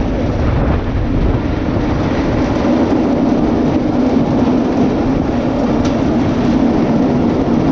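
Go-kart's single-cylinder Predator engine, its governor removed, running steadily at speed as the kart drives over gravel: a constant engine drone over the rumble of tyres on loose gravel.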